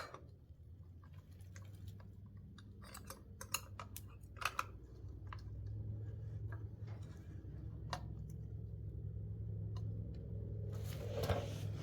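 Scattered light metal clicks and clinks as a Harley-Davidson primary drive assembly with its new compensator is worked onto its splined shafts, over a steady low hum.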